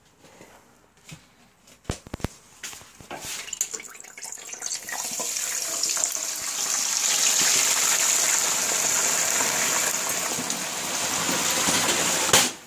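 Hot oil in a Butterball electric turkey fryer sizzling and bubbling as a whole turkey goes into it. The sound builds over the first few seconds into a loud, steady hiss. A few clicks come about two seconds in, and a sharp knock near the end as the lid shuts, after which the sizzle is muffled.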